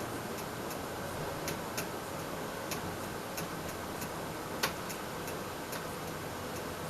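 Faint, regular ticking, about three ticks a second, over a steady hiss, with one louder, sharper click a little past the middle.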